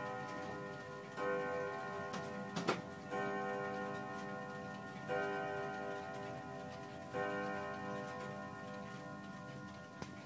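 Gustav Becker pendulum wall clock striking, four ringing strokes about two seconds apart, each dying away slowly over the steady tick of the movement. A sharp knock about two and a half seconds in, the loudest moment, is the clock's glass case door being shut.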